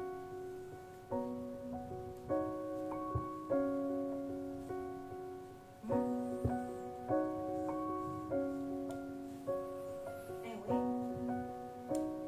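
Background piano music: slow, held chords struck about once a second, each fading before the next, with a couple of faint knocks underneath.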